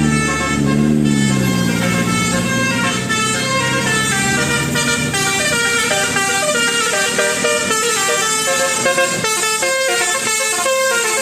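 Bus 'telolet' horn, a Basuri multi-trumpet air horn, playing a quick tune of changing notes. Near the start a lower tone slides up and back down.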